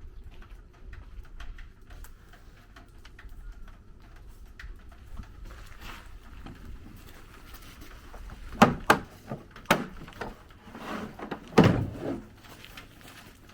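A low background hum, then a handful of sharp knocks and thuds a second or two apart in the latter half, with no saw running.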